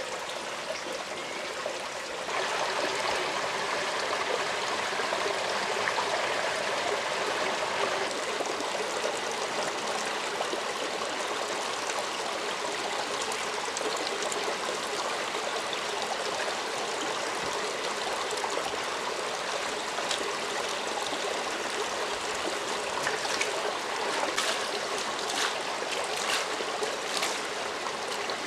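Shallow jungle stream running steadily, growing louder about two seconds in. Near the end come quick splashes of hands being washed in the shallow water.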